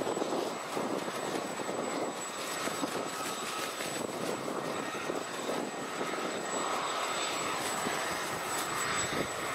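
Boeing B-52 Stratofortress on approach with gear down, its eight Pratt & Whitney TF33 turbofan engines giving a steady rushing jet noise.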